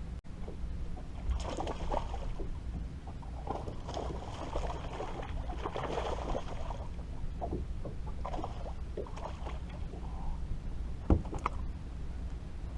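Water splashing and sloshing around a fishing boat over a steady low rumble, with one sharp knock against the boat about eleven seconds in.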